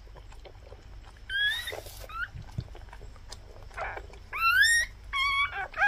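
Newborn Indian Spitz puppies squeaking: thin, high, rising squeaks, one about a second and a half in and a short one soon after, then a louder run of squeaks and quick chirps near the end.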